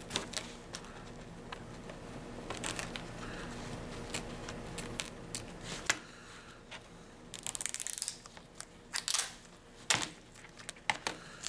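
Plastic clicks and cracks of an EpiPen auto-injector's outer cover being pried with a multi-tool blade and pulled off by hand, with a quick run of small clicks about seven seconds in and sharper single clicks near the end.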